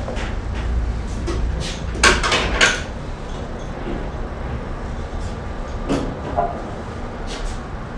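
Handling knocks and clatter of an oil filter and plastic funnel as excess oil is poured out of the filter, a few sharp knocks about two seconds in and another near six seconds, over a low rumble.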